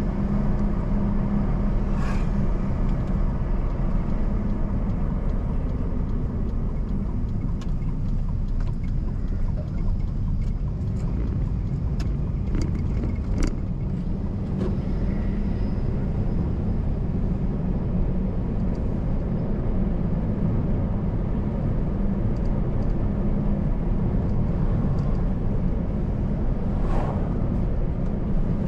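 Car being driven on a road: a steady low rumble of engine and tyres. A few faint sharp clicks come around the middle, and a brief rising-and-falling swell comes near the end.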